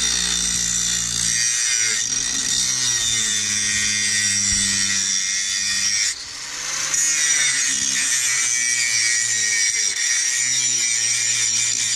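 Electric angle grinder running and grinding the outer edge of a car's brake caliper, taking metal off so the wheel no longer rubs on it. It runs steadily with a high whine, and eases off briefly about six seconds in before biting again.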